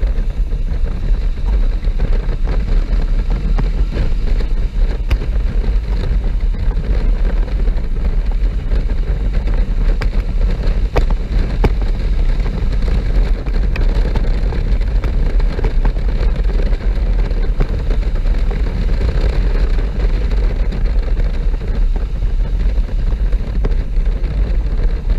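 Steady wind rush on the microphone of a motorcycle-mounted camera at road speed, strongest as a low rumble, with the Honda NC750S's parallel-twin engine running under it.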